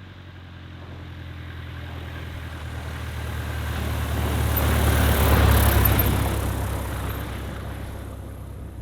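Light propeller airplane flying past: its engine and propeller grow steadily louder to a peak a little past the middle, then fade away.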